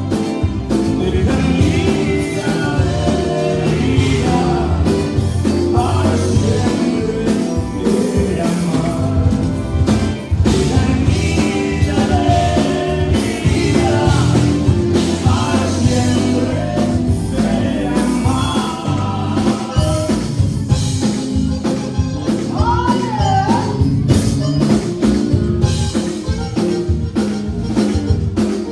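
Live Tejano conjunto band playing a song: button accordion, electric guitars, bass and drum kit keeping a steady beat, with lead vocals sung through the PA.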